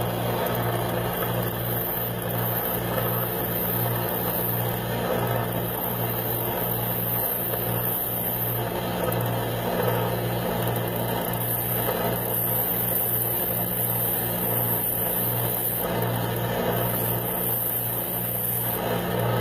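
Combination belt sander running steadily with a constant motor hum, while the metal corners of a bracelet hinge are ground against it to taper and round them, the grinding noise swelling and easing a little.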